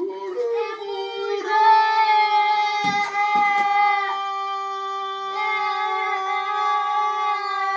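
A child's voice holding one long, steady note in imitation of a horn blast, sliding up into it at the start and dipping briefly about four seconds in. A few short knocks sound near the middle.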